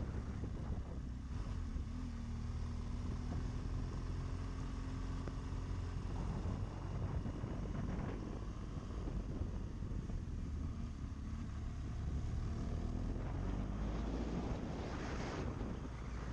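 BMW GS adventure motorcycle's engine running at an easy cruise, its pitch rising and falling gently with the throttle through the bends, under steady wind noise on the microphone. A short louder rush of noise near the end.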